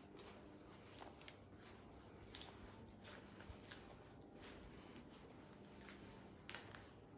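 Near silence: faint steady room hum with scattered soft rustles and clicks.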